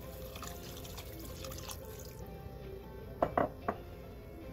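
Water poured from a glass measuring cup into a pot of broth, a splashing stream that stops after about two seconds, followed by a few sharp knocks about three seconds in. Background music plays throughout.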